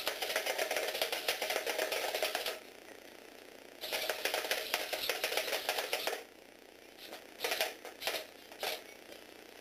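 Lego Technic robot dog's small motor, a Tomy Aero Spider motor, driving its plastic gear train and legs: a fast, fine clicking clatter. It comes in two runs of about two and a half seconds each with a pause between, then several short bursts as the dog starts and stops.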